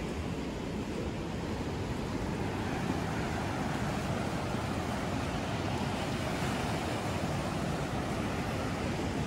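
Ocean surf washing ashore in a steady rush, mixed with wind.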